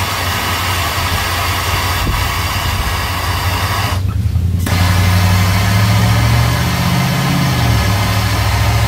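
Handheld gas torch burning with a steady hiss and a low rumble as it heats seized brake-line nuts on a master cylinder to free them. The hiss drops out for a moment about four seconds in, then resumes.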